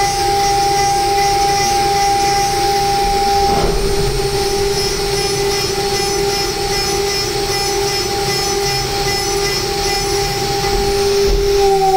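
High-speed CNC mill spindle whining steadily at 24,000 rpm while a 6 mm single-flute end mill helically bores (cleanup pass) holes in an aluminium block. At the very end the whine begins to drop in pitch as the spindle spins down.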